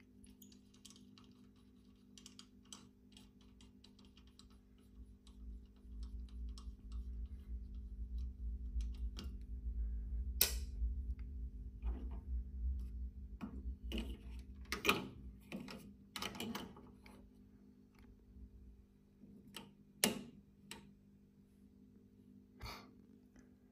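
Scattered clicks and knocks of plug pins and a valve being handled on a valve tester's plug-board, over a steady low hum. A low rumble comes in for several seconds in the middle.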